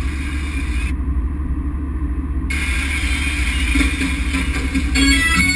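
Car driving, heard from inside the cabin: a steady low rumble of engine and road noise. Near the end, music with guitar comes in.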